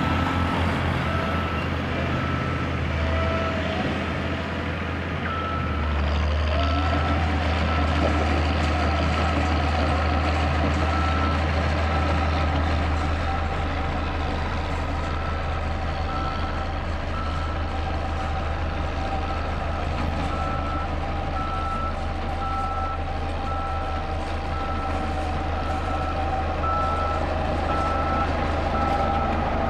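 Diesel road rollers working on a dirt road base: a steady low engine and drum rumble that grows louder about six seconds in, with a reversing alarm beeping at an even pace.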